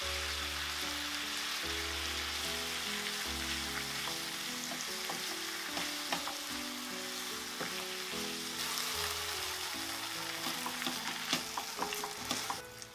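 Chicken breast and king oyster mushrooms sizzling in butter in a frying pan. From about five seconds in, a spatula scrapes and clicks against the pan as the flour is stirred through, with the strokes coming thickest near the end.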